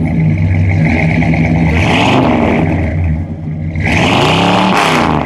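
1974 Chrysler New Yorker's 440 V8 running through its exhaust, heard from the tailpipes. It is revved twice, about two seconds in and again near the end, the second longer, the pitch rising and falling back to idle each time.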